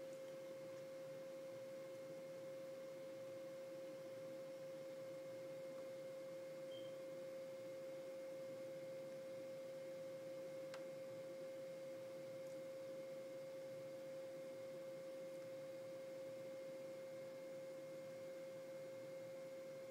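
A steady electronic tone held on one pitch, with faint hiss beneath and a faint click about eleven seconds in.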